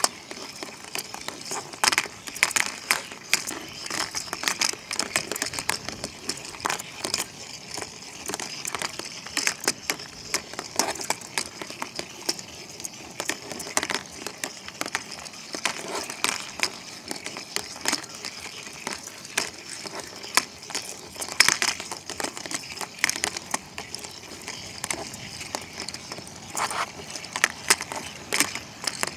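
Motorised rolling ball toys with plush weasels attached, running inside a plastic laundry basket: a steady rattling whir from the balls, with frequent irregular clacks and knocks as they bump into the basket walls and each other.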